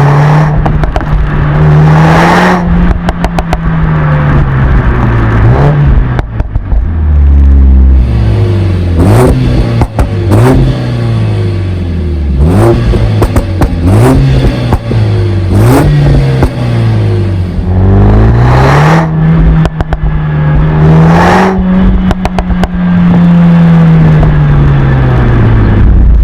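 Stage 1 tuned 2020 Mercedes-AMG A45 S 4MATIC+ 2.0-litre turbocharged four-cylinder being revved repeatedly: a long rev, then a run of quick blips about once a second, then another long rev near the end. Exhaust pops and crackles sound as the revs fall.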